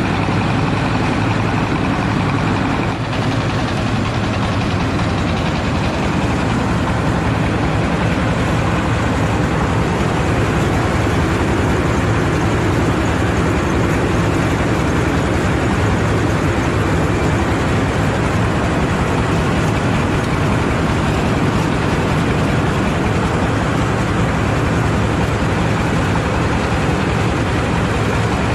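Diesel engine of a mobile rice-hulling machine running steadily.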